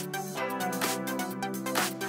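Electronic background music with held synth chords over a steady beat of about two strokes a second.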